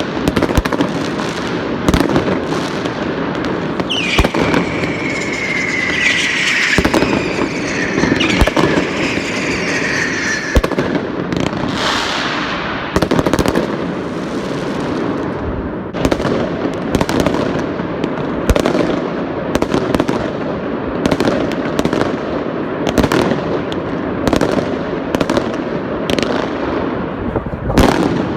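Fireworks barrage: frequent sharp bangs of exploding shells over a continuous crackle. Between about 4 and 10 seconds in, several whistles overlap, each falling in pitch.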